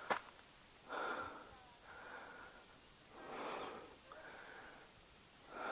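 A hiker's heavy breathing close to the microphone, about five slow breaths in and out: he is out of breath from climbing a trail that runs uphill the whole way.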